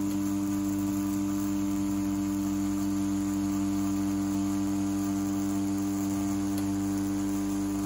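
CNC T4 rotary tattoo pen running at a steady speed while its needle pulls a line into practice skin: an even, unchanging motor hum.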